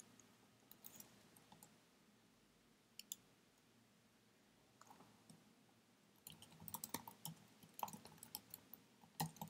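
Faint computer keyboard typing: a few scattered key clicks, then a quick irregular run of keystrokes from about six seconds in until near the end.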